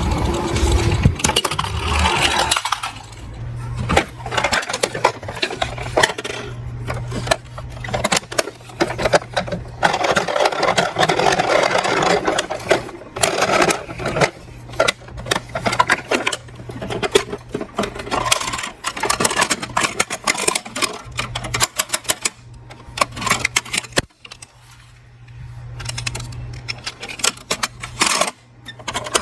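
Small diecast toy cars clattering and clicking against each other and against hard plastic as they are handled and run down a slope, in irregular rapid clicks, with a steady low hum underneath.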